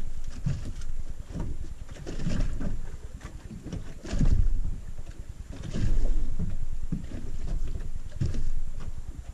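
Small waves lapping and slapping against the hull of a drifting boat, in irregular surges, with wind rumbling on the microphone.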